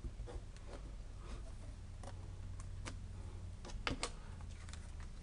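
Light, scattered clicks and taps of a paper card and plastic stamping platform being handled, with a sharper pair of clicks about four seconds in, over a faint low hum.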